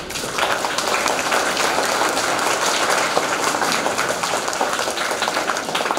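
Audience of schoolchildren applauding: dense, steady hand-clapping that starts abruptly.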